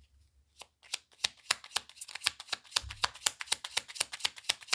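Tarot cards being shuffled by hand: a quick, steady run of crisp card snaps that starts about a second in.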